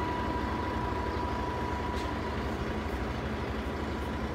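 Steady low rumble with a faint, steady high-pitched tone running through it; no distinct event stands out.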